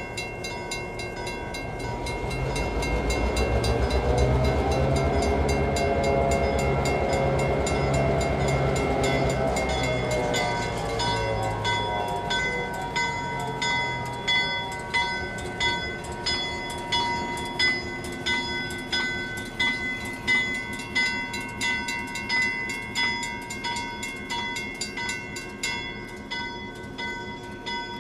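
CF7 diesel-electric locomotive (EMD 567 V16) rumbling at low speed as it crosses the road, loudest a few seconds in and fading after about twelve seconds. A grade-crossing signal bell rings steadily with an even beat and stands out once the engine fades.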